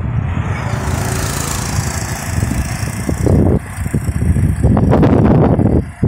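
Road traffic going past: a motor vehicle's engine and tyre noise swells and fades, with wind rumbling on the microphone, loudest near the end.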